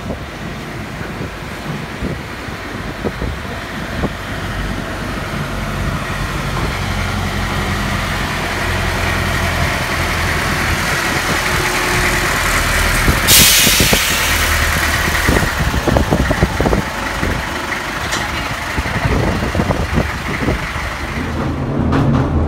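Southend Pier Railway train running in along the pier track, its steady rumble growing louder as it draws alongside, with a brief loud hiss about halfway through. Strong wind buffets the microphone throughout.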